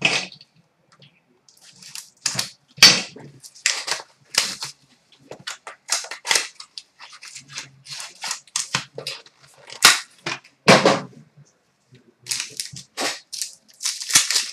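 A trading-card pack being torn open and its cards handled: a run of sharp, irregular crackles and snaps from the wrapper, with a few louder cracks.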